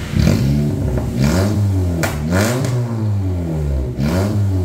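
Honda Brio's 1.2-litre four-cylinder engine revved in about four short throttle blips, pitch rising and falling with each, through a freshly fitted full-system aftermarket exhaust with an HKS 'pelangi' rainbow-titanium muffler on trial.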